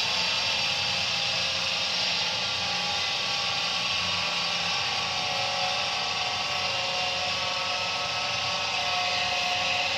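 Viessmann Vitodens 100 condensing gas boiler running with its output turned down: the combustion fan whirs steadily over the rush of the burner, with a few faint whining tones. The fan had been flooded with water from condensed flue gas, and the test is whether the boiler chokes at low output.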